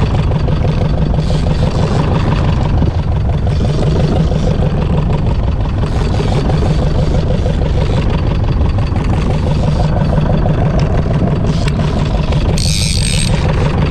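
Fishing boat's diesel engine running steadily at trolling speed, with a brief hiss near the end.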